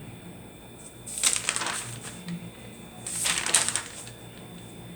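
Two short bursts of rustling, crackly noise, about two seconds apart.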